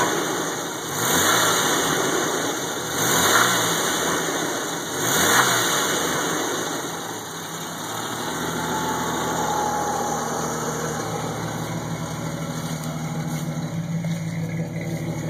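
Jeep 4.0 straight-six engine blipped up in revs three times, about two seconds apart, then settling back to a steady idle about seven seconds in. It is being revved to bring out a knock/rattle the owner is trying to diagnose.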